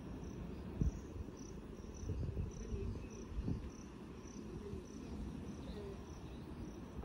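Insect chirping in an even rhythm, about two short high chirps a second, over a low rumbling background. A short thump comes about a second in and another about halfway through.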